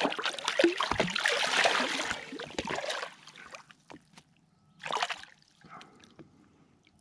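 A hooked bass thrashing and splashing as it is landed, with scattered knocks, for about three seconds. One more short splash follows about five seconds in.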